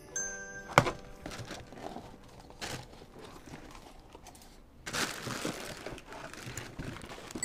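Cardboard shipping box being opened by hand: a sharp snap about a second in, then rustling of cardboard flaps and the crinkling of the plastic wrapping on the tail bag inside, loudest about five seconds in.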